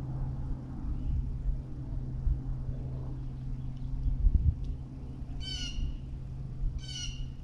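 Two short, harsh bird calls about a second apart near the end, each a stack of ringing tones. Under them runs a steady low hum, with a dull knock a little past halfway.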